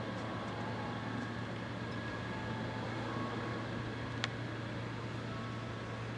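Steady low mechanical hum under an even wash of background noise, with one sharp click about four seconds in.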